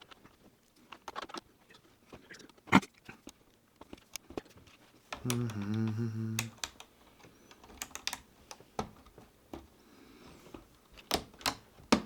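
Plastic Lego bricks clicking and rattling as they are handled and snapped together, in scattered irregular clicks. About five seconds in, a low steady buzzing tone sounds for about a second and a half.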